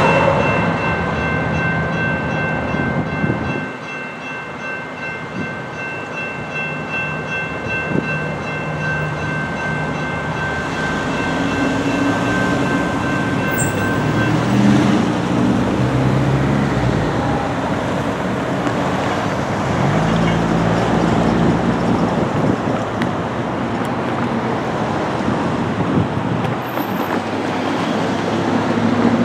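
Grade-crossing electronic bells (General Signals Type 2) ringing steadily, then stopping about 14 seconds in as the crossing deactivates and the gates go up. A train rumble dies away in the first few seconds, and later car engines accelerate through the crossing.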